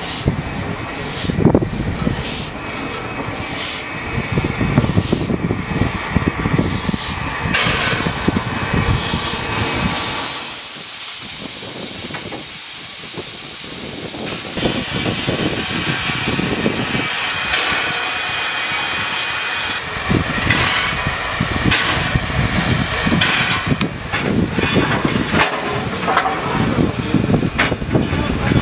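SAR T class steam locomotive hissing steam, a strong steady hiss for several seconds around the middle, with irregular knocks, clanks and low rumbles of the working engine before and after.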